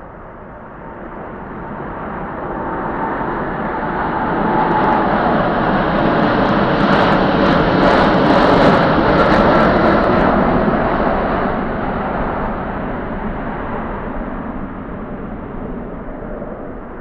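Airbus A330 jet engines at take-off power as the airliner accelerates past and lifts off: a broad jet rumble that swells to a peak about halfway through, with a crackling edge at its loudest, then fades.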